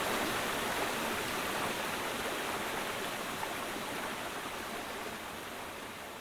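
Mountain stream rushing over rocks, a steady even wash of water that slowly fades out.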